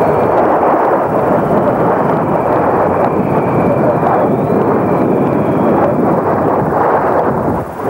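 Loud, continuous roar of storm wind and heavy sea aboard a sailboat, with a faint high whistle coming and going. The noise dips briefly near the end.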